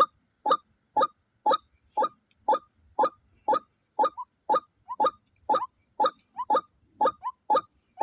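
White-breasted waterhen's harsh 'kruak' call repeated steadily, about two calls a second, with a faint steady high whine underneath.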